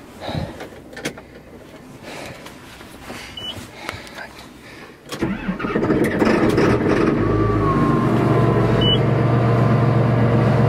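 John Deere 8400 tractor's diesel engine cold-starting: after a few seconds of faint knocks and handling in the cab, it catches about five seconds in and settles into a steady idle.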